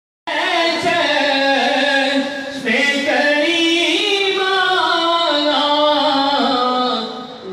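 A man's solo unaccompanied devotional chanting, sung into a microphone in long held, ornamented phrases, with a short break for breath about two and a half seconds in and another near the end.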